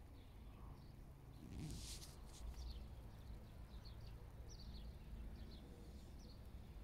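Faint outdoor ambience: small birds chirping in many short, quick notes over a low wind rumble on the microphone, with a brief rustle about two seconds in as the phone is turned around.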